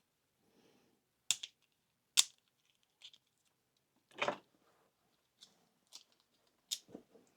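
A few separate sharp clicks and taps with a softer knock between them: small parts and tools being handled and set down.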